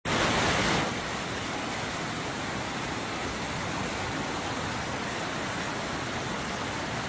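Muddy floodwater rushing across a road: a steady rushing noise, a little louder for the first second.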